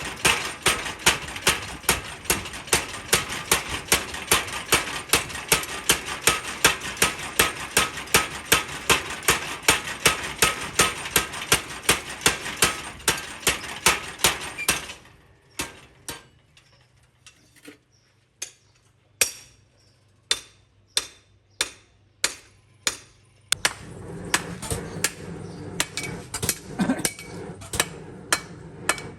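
Hammer blows on metal while forging a knife, in a steady rhythm of about three strikes a second over a constant background noise. About halfway through, the background drops out and the blows become fewer and more spaced. Near the end the background returns and the striking picks up again.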